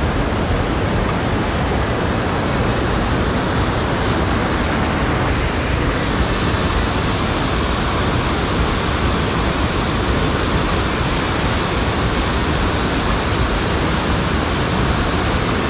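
A small river waterfall and rapids pouring over rock ledges: a loud, steady rush of white water.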